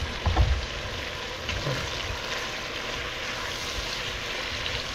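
Chopped bacon frying in a deep stainless steel pot: a steady, even sizzle, with a couple of light knocks near the start.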